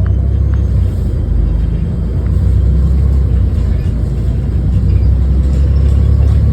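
Diesel bus engine running under way: a deep, steady drone that grows a little louder about two seconds in and again near the end.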